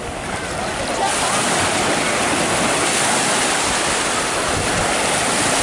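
Steady rush of sea waves, louder from about a second in.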